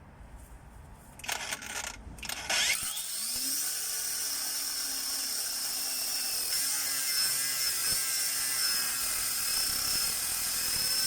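Cordless angle grinder: two short blips about one and two seconds in, then it spins up and runs steadily with a high whine, cutting through a seized, rusted nut.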